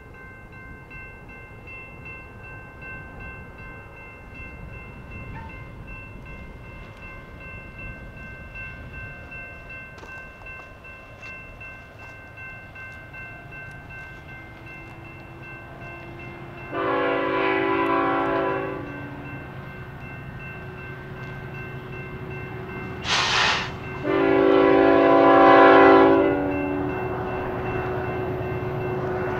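Diesel freight locomotive approaching with a rising engine rumble and sounding its multi-chime air horn: a long blast about two-thirds of the way in, a brief blast, then a longer, louder blast near the end.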